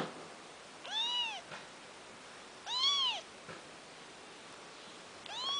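Kitten meowing three times, about two seconds apart: high mews that each rise and then fall in pitch.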